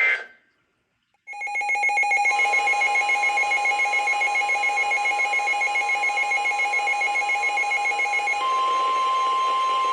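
NOAA Weather Radio alert signal: after a brief silence comes a short buzzy digital data burst, then the steady 1050 Hz warning alarm tone. A weather radio receiver's own pulsing alert beeps, about four a second, sound over it until roughly a second and a half before the end, leaving the pure steady tone alone.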